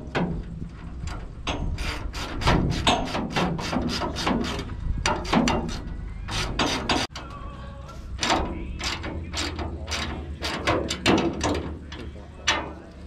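A rapid, irregular run of mechanical clicks and knocks over a low steady hum, with a brief break about seven seconds in.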